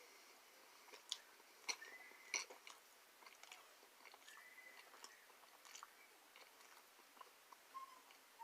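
Quiet close-up chewing of a bite of pepperoni pizza: soft wet mouth clicks and smacks, with a few sharper ones in the first couple of seconds.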